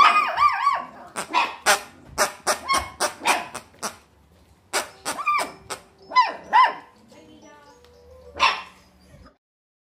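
A litter of 4-week-old puppies yipping and barking in many short, sharp calls, some of them arching up and down in pitch.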